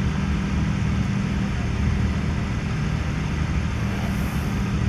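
Steady low mechanical drone with a hum running under it, like an engine running nearby.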